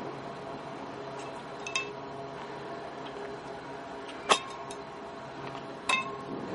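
Freight train boxcars rolling across a steel girder bridge: a steady rumble and hum, with three sharp metallic clanks that ring, about two, four and six seconds in, the middle one loudest.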